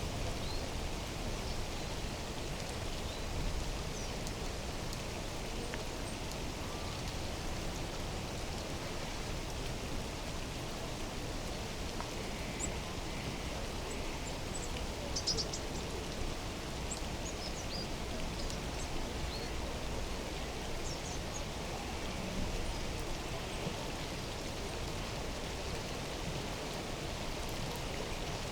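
Steady rushing of water, an even noise that stays level throughout, with a few faint high chirps about halfway through.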